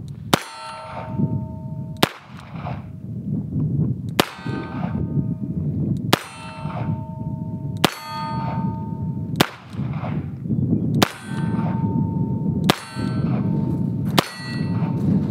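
Rock Island Armory AL22 .22 LR revolver firing a slow string of about nine shots, roughly one every one and a half to two seconds, each shot followed by the short ringing ding of a hit steel target.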